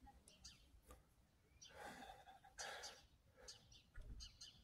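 Near silence: faint bird chirps in the distance, with two faint breaths close to the microphone about two and three seconds in.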